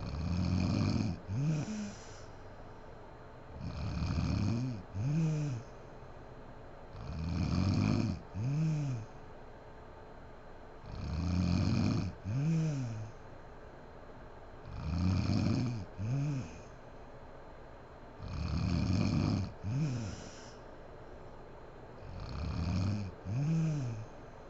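A sleeping woman snoring in a steady rhythm, about one breath every three and a half seconds, seven times. Each breath is a long rough snore followed by a shorter one whose pitch rises and falls.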